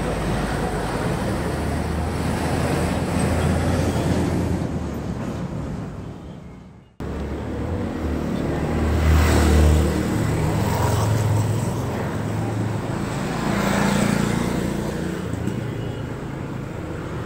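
Steady low rumbling background noise, like road traffic. It fades away about six seconds in and cuts back in abruptly a moment later.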